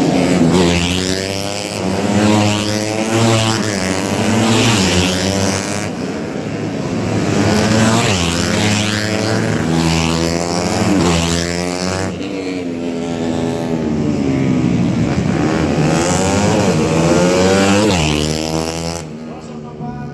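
Several 125cc four-stroke underbone race motorcycles racing, their engines revving high and dropping again as they change gear and pass. The sound eases off near the end.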